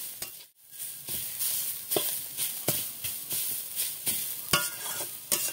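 Radish greens sizzling as they are stir-fried in a metal wok, with a spatula scraping and knocking against the pan every second or so.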